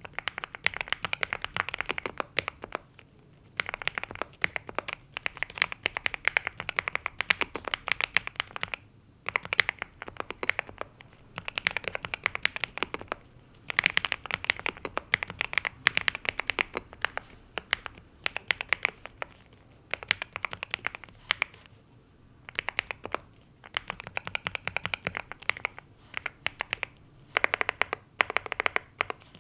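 Typing on a NuPhy Gem80 mechanical keyboard with linear Mint switches and double-shot PBT mSA keycaps: rapid keystrokes in bursts of a few seconds, with brief pauses between them.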